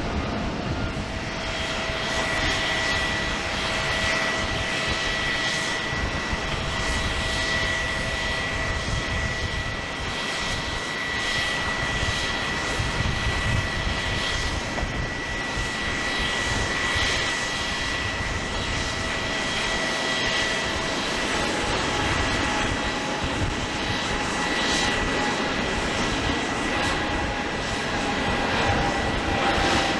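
Boeing 787-8 airliner's jet engines running with a steady whine: a high tone and a lower one over a constant rush.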